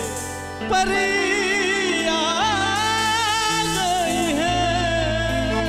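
Live stage band playing a Hindi wedding song: a held vocal-like note ends at the start, and under a second in the band comes back in with a wavering lead melody over steady bass notes.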